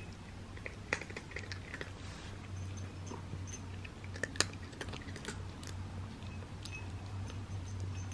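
Cats chewing and crunching small crunchy cat treats off little plates: irregular soft crunches and clicks, with one sharper click about four and a half seconds in, over a low steady hum.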